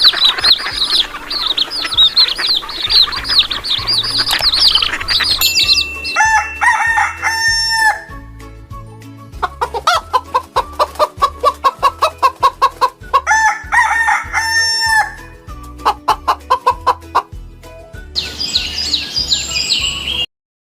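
Chickens calling: a dense chorus of high peeping chirps, then runs of quick clucks and longer crowing calls, then high peeps again before the sound cuts off abruptly.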